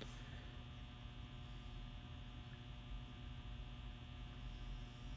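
Steady electrical mains hum under faint room tone; the clay work with the small hand tool makes no clear sound of its own.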